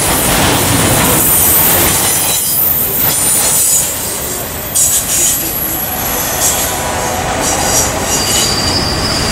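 Freight train of autorack cars rolling past, a steady rumble of wheels on rail with high-pitched wheel squeal over it. The sound shifts abruptly about halfway through.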